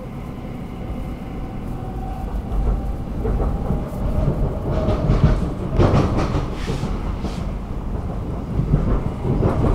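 Stockholm metro train running along the track, heard from inside the carriage. A steady rumble builds from about two seconds in, with bouts of clattering about halfway through and again near the end.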